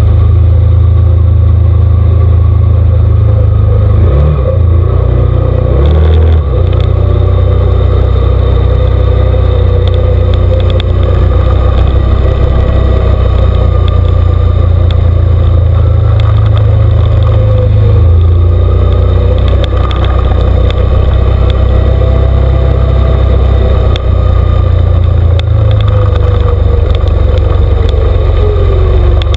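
An off-road vehicle's engine runs under a heavy, loud low rumble as it is driven along a trail, its revs rising and falling. Two thumps come about four and six seconds in.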